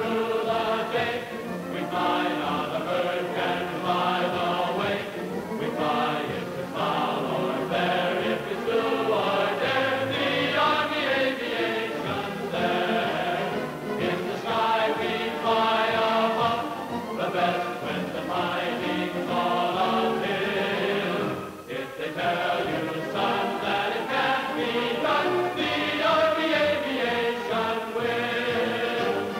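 Film score music with a choir singing sustained, swelling chords, dipping briefly about 21 seconds in.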